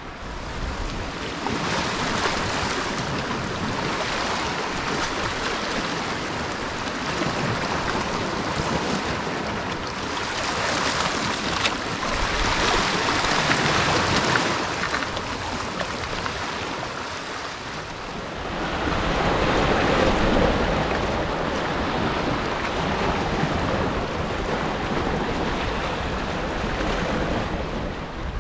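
Sea washing against shoreline rocks with wind buffeting the microphone, a steady rushing that swells louder twice, around the middle and about two-thirds of the way through.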